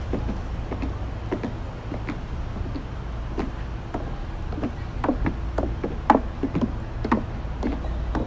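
Wind rumbling on an unshielded phone microphone, with irregular light taps and clicks, several a second, busier in the second half.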